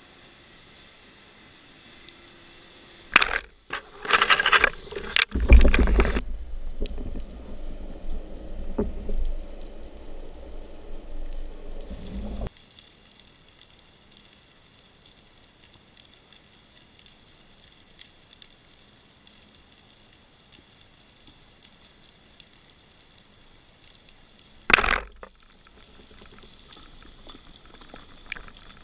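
Underwater sound picked up by an action camera in its housing on a speargun. A faint steady hiss is broken by several seconds of loud knocking and rumbling handling noise, which stops abruptly, and later by one sharp knock.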